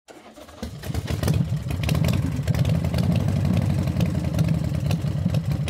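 An engine running steadily, starting about half a second in.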